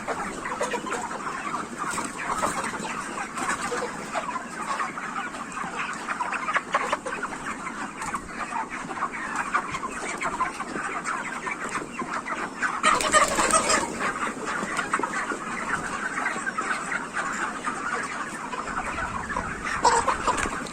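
A large flock of 44-day-old broiler chickens clucking and calling continuously, many birds at once. A louder flurry of calls comes about two-thirds of the way through.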